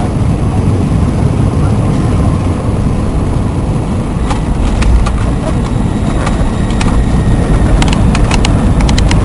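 Airliner cabin noise during the landing: a loud, steady low rumble of the jet engines and the aircraft moving along the runway, with a run of short rattles and knocks in the second half, thickest near the end.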